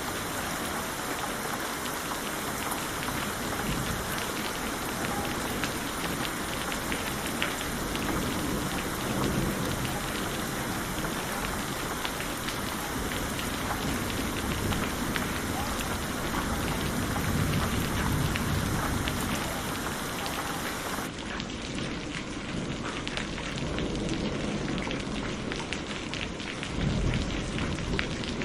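Steady heavy rain falling, with low rolling thunder rumbling several times. About three-quarters of the way through, the hiss of the rain abruptly loses its highest part.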